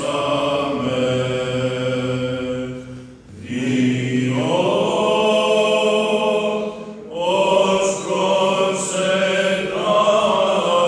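Byzantine chant sung by several male voices in long, held notes. It breaks off for a breath about three seconds in and resumes with a phrase that slides upward, with another short break near the middle.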